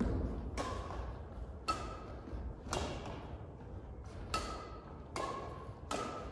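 Badminton rally: racket strings striking a shuttlecock about once a second, six sharp pops, each with a brief ring and a short echo.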